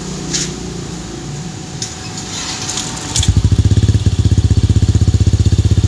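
A Yamaha 155 cc single-cylinder scooter engine, breathing through a JVT titanium aftermarket exhaust, starts about three seconds in and idles loud, with a fast, even pulsing beat from the pipe.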